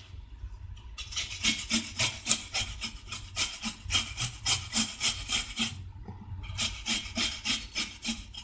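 Fresh turmeric root being grated on a hand-held carrot grater: quick rasping strokes, about four a second, with a short pause about six seconds in before the grating resumes.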